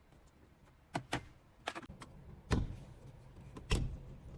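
Parts being handled during a truck interior trim job: a few light clicks and knocks, the loudest two with a low thump about two and a half and nearly four seconds in.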